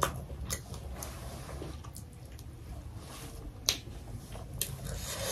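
Metal chopsticks clicking against a glass bowl of noodle soup while picking out pieces of meat: a few sharp, separate clicks over several seconds, with faint wet eating sounds between them.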